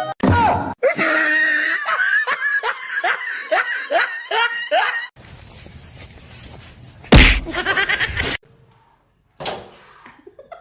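A person laughing in a run of repeated pitched bursts, then a sudden loud noise about seven seconds in, followed by a brief silence.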